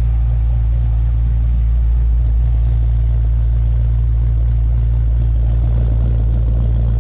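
Engine fitted with a freshly installed 2.9 L Whipple supercharger and SRT Max Plus cam, idling steadily. It is still cold, so the cam's sound is really quiet.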